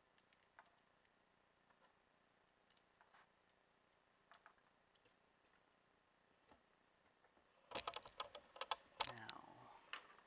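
Small armor pieces of a figure clicking and rattling as they are handled: a few faint ticks, then a quick run of louder clicks near the end.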